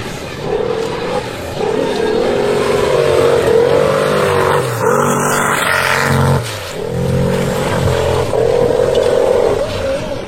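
A motor vehicle's engine revving up and down again and again, with a brief drop in revs about two thirds of the way through.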